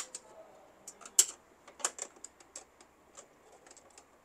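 Flat screwdriver tip clicking against the plastic paper-feed rollers and parts inside a Canon MG2540s inkjet printer as they are prised up: a scatter of irregular sharp clicks, the loudest about a second in.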